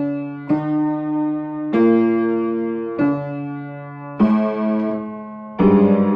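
Piano playing slow, heavy chords, each struck and left to ring and fade before the next. About six chords in all, growing louder toward the end.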